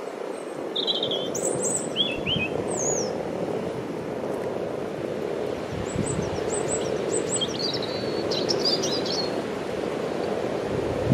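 Steady purring chorus of a crowd of breeding common frogs. Small birds chirp and trill over it in short bursts, a little after the start and again in the middle, and wind buffets the microphone now and then.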